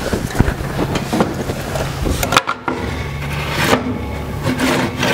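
Scattered knocks and clatters as a loaded wheeled cart carrying an air compressor is handled on a box truck's metal liftgate, over a steady low hum.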